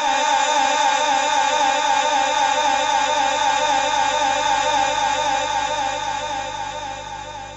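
A man's voice in melodic Qur'anic recitation, holding one long wavering note through the PA system and fading away near the end.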